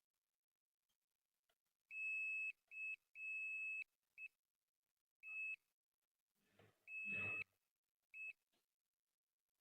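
A high-pitched electronic beep sounding in about seven bursts of uneven length: some brief blips, some over half a second long. A faint rustle lies under one of the later beeps.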